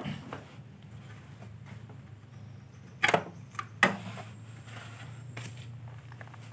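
Hands pulling the neck board off a CRT television's picture tube make two sharp clicks, about three and four seconds in, with a fainter one between them. A steady low hum runs underneath.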